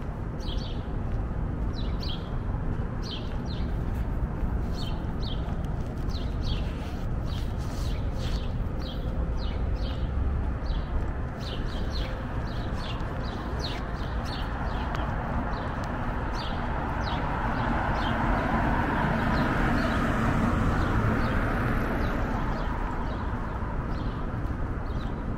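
Steady rumble of city street traffic that swells as a vehicle passes about two thirds of the way through. Over it runs a light, regular tapping about twice a second: footsteps walking on pavement.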